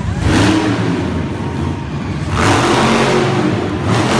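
Monster truck engine revving hard in repeated surges as the truck accelerates and pulls up into a wheelie.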